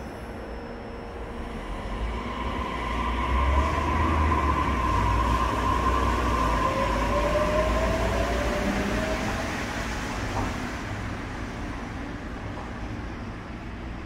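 Daegu Metro Line 3 rubber-tyred straddle monorail train pulling away from a station platform and accelerating. The running noise swells for a few seconds, with a motor whine rising in pitch, then fades as the train leaves.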